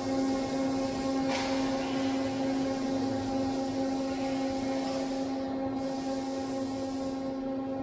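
Steady industrial machine hum made of a few even tones. About a second in, there is a short rustle of shredded metal scraps being handled.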